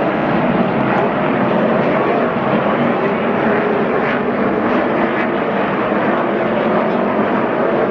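Many V8 engines of a NASCAR Sprint Cup field running together in a tight pack, bunched up for a restart. Together they make one loud, steady sound.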